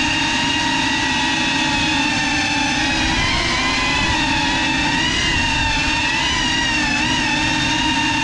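GEPRC CineLog35 cinewhoop drone's brushless motors and ducted propellers whining steadily in flight, the pitch wavering a little up and down with throttle from about three seconds in.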